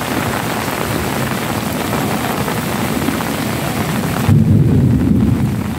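Heavy rain hissing steadily. About four seconds in, a loud low rumble lasts a little over a second and drowns out the hiss.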